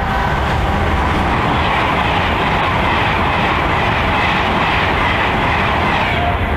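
Class 390 Pendolino electric train 390117 passing through at speed: a loud, steady rush of wheels on rail and air.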